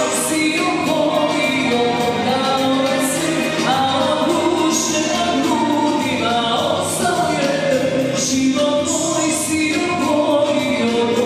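A live band plays amplified party music, with a singer on a microphone over keyboard and drums. Cymbal strokes land about once a second throughout.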